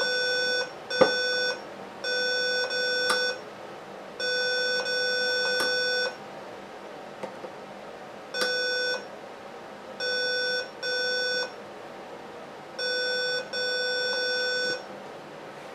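Digital multimeter in diode mode beeping in about ten short, irregular bursts as its probe tip is touched to the pins of an injector-driver MOSFET chip, a buzzy steady tone; each beep signals near-zero voltage drop, continuity between the pin and the injector control wire. A few sharp clicks of the probe tip on the pins come between the beeps.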